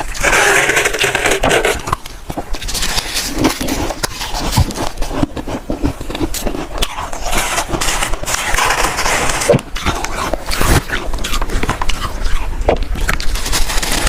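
Close-up crunching and chewing of freezer frost: dense, irregular crackles and sharp crunches with no steady rhythm.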